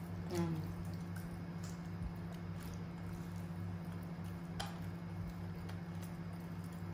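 Quiet room sound: a steady low hum with a few faint ticks and one sharp click past the middle, and a short pitched sound about half a second in.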